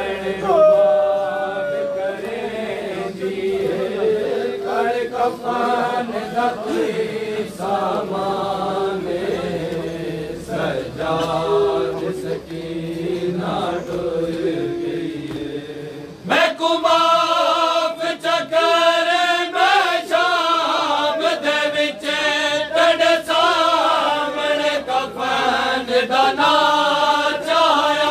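A noha, the Shia mourning lament, chanted by several men's voices without instruments. About sixteen seconds in, the voices turn abruptly louder and fuller.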